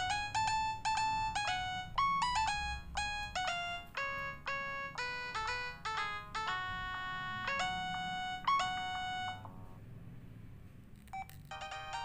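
Huawei C210e phone's built-in polyphonic MIDI ringtone playing a quick melody of short notes through the phone's small speaker. The tune stops about three-quarters of the way through, a brief blip follows, and another ringtone starts just before the end.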